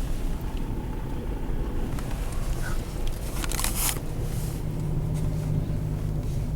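A semi truck's engine running steadily with a low hum that strengthens from about four seconds in. A brief loud hiss comes about three and a half seconds in.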